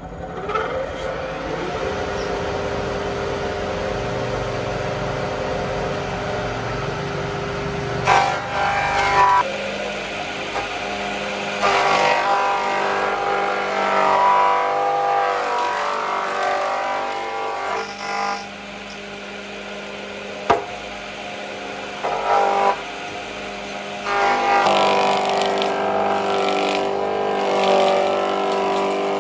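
Electric bench planer starting up, its motor rising in pitch to a steady hum, then cutting a wooden board in several louder rough passes as the timber is pushed across the cutter head.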